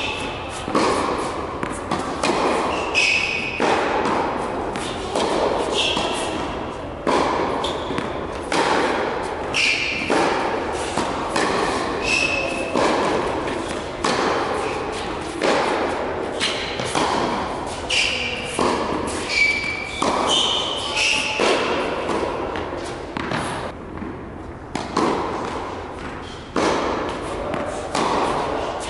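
Tennis balls struck by racket and bouncing on an indoor hard court in a continuous rally, a sharp hit every second or so, each echoing in the large hall.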